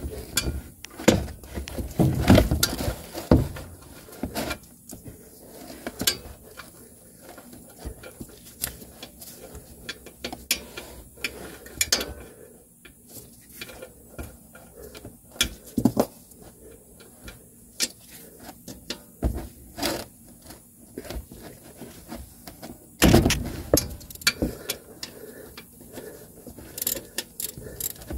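Ratchet wrench clicking in short irregular runs while a 14 mm engine-oil drain plug on a 2023 Kawasaki Mule 4010 is loosened, with louder knocks and clatter about two seconds in and again around twenty-three seconds in.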